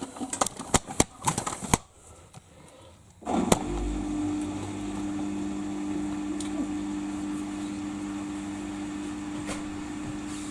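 A few sharp clicks, then about three seconds in a Samsung front-loading washing machine starts its quick wash cycle with a thump and settles into a steady, even hum.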